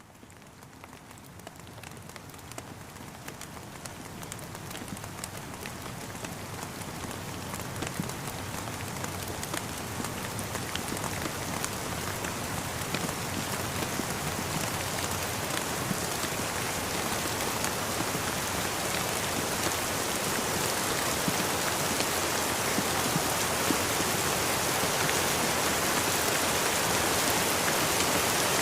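Steady rain falling, many small drop ticks over an even hiss. It grows gradually louder throughout as it fades in.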